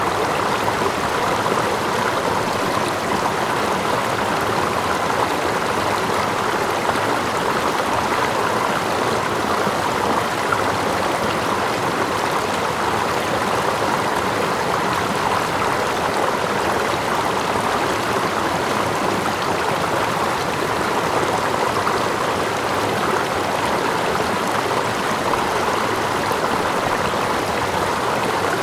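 Running water in a stream, a steady unbroken rush, with water lapping close by and a small waterfall cascading further off.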